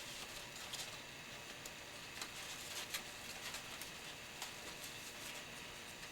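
Folded paper being handled: faint crinkling and rustling with scattered small clicks and ticks.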